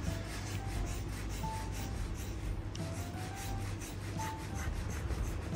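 Hairdressing scissors crunching through a thick bundle of long hair, a run of rasping cuts taking it off in one go. Soft background music with a bass line and a short repeating melody runs underneath.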